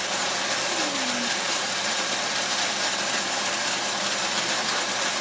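Battery-powered Hot Wheels track booster whirring steadily, its small motor running.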